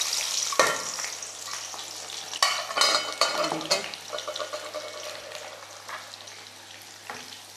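Green chillies and onion frying in plenty of hot oil in a kadai for a tadka: a loud, steady sizzle with crackling. It has a burst of sharp pops and clicks between about two and a half and four seconds in, and grows somewhat quieter towards the end.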